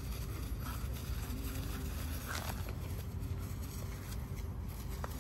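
Two French bulldogs wrestling in dry fallen leaves: the leaves rustle and crackle under their scrambling paws, with a few short scuffs. A steady low rumble runs underneath.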